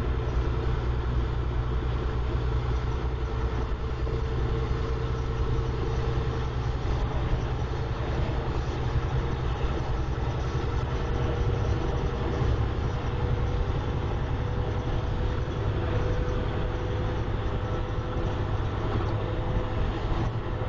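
Truck cab interior at highway speed: a steady low engine drone and road noise, with a thin steady whine above it.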